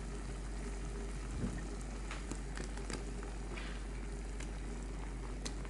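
Saucepan of seaweed soup boiling on a gas stove: steady bubbling with frequent small pops and crackles, and one soft knock about a second and a half in.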